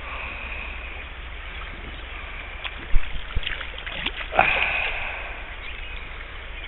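Steady rush of river current, with a hooked trout splashing and thrashing at the surface about three and a half to four and a half seconds in. A sharp knock just before it is the loudest sound.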